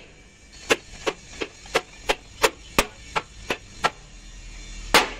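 Hand hammer striking the steel truck chassis frame: a quick run of about ten blows, roughly three a second, then a pause and one louder blow near the end.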